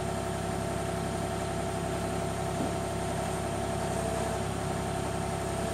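Kubota mini excavator's diesel engine running steadily at an even pitch.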